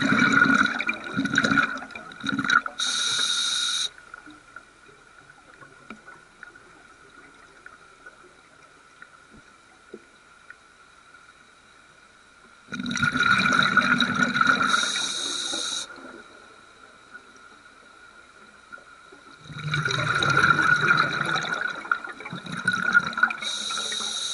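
Scuba diver's open-circuit regulator underwater: three breaths, each a loud spell of gurgling exhaled bubbles with a low rumble, followed by about a second of steady hiss, with quiet gaps of several seconds between them (at the start, about 13 seconds in and about 20 seconds in). A faint steady high whine runs underneath.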